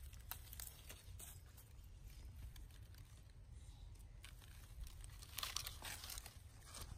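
Faint rustling and crackling of dry leaf litter as a macaque shifts and picks at things on the ground, with a denser run of crackles about five and a half seconds in.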